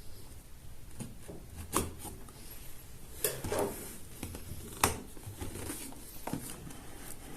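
Cardboard phone box being opened by hand: scraping and rubbing of the lid and packaging, with a few sharp clicks and taps spread through.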